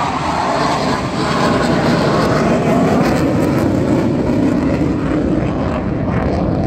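Display aircraft flying low past, a loud engine roar whose pitch falls as it goes by.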